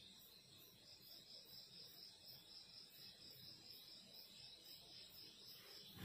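Near silence: a faint steady high-pitched hiss, with one light click at the very end.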